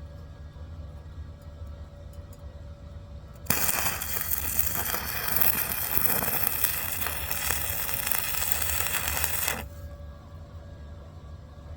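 Stick-welding arc crackling and sizzling as a weld is laid, starting suddenly about three and a half seconds in and cutting off about six seconds later. A steady low hum runs underneath throughout.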